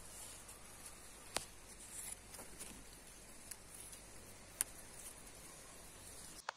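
Faint rustling of blackcurrant bush leaves and small clicks from hands picking berries off the stems, over a steady low hiss. Two sharper clicks stand out, about a second and a half in and again past four and a half seconds.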